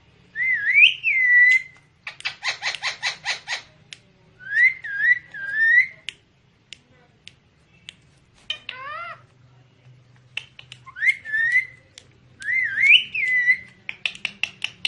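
Ringneck parrot whistling a series of swooping whistles that rise and fall, with a quick run of about eight rapid pulses about two seconds in and a short, harsher call about halfway through.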